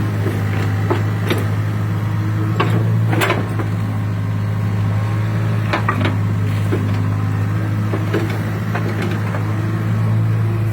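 Hitachi excavator's diesel engine running at a steady pitch, with scattered knocks and clanks from the digging work.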